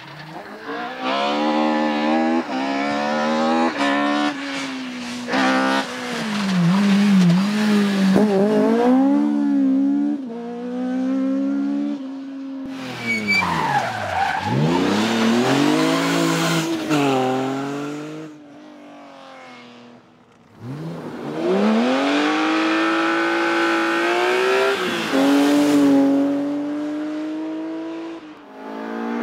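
Rally car engine driven hard on a stage, revs climbing and dropping through a series of gear changes. About halfway the revs fall away low and pick up again, and after a short quieter lull about two-thirds in, engine revs climb hard once more.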